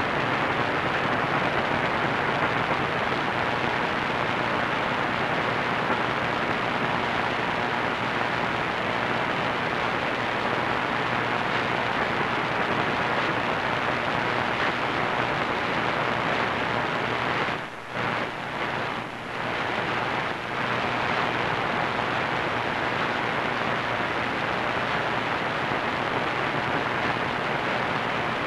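Steady hiss and static from an AM radio receiver tuned to a distant station on 1490 kHz, with no programme audible. The noise drops out briefly a few times about two-thirds of the way through.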